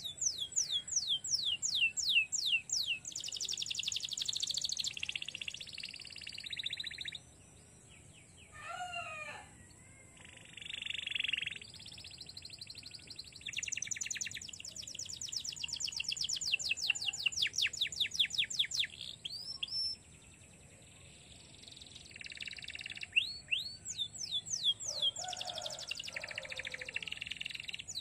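Domestic canary singing in phrases: fast trills of rapidly repeated falling notes alternating with buzzy rolling passages, broken by short pauses. The longest trill runs through the middle of the song.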